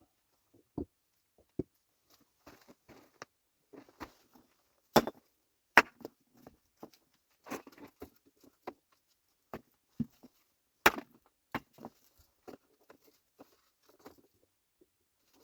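Wood being chopped and broken: irregular sharp knocks and cracks with short crunchy scrapes between them, the loudest three about five, six and eleven seconds in.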